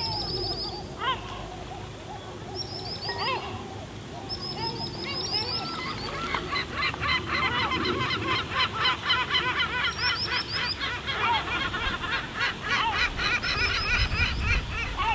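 Seagulls calling: a few short, high, quick squeals in the first half, then from about six seconds in a dense run of rapid repeated calls that carries on until near the end.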